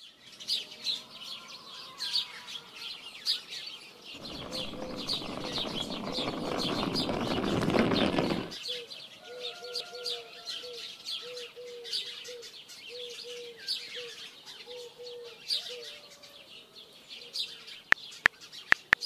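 Birds chirping steadily, with a rushing noise that swells for about four seconds and cuts off abruptly, then a bird repeating a low note about twice a second. Near the end, a few sharp clicks of taps on a phone's touchscreen keyboard.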